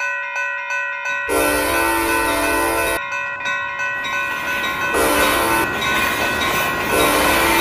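Diesel locomotive horn blowing a series of blasts with short breaks at a grade crossing, over the steady ringing of the crossing bells and the low rumble of the approaching train.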